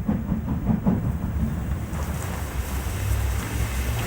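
Steam locomotive standing with steam hissing over a low steady rumble; the hiss grows stronger about two seconds in.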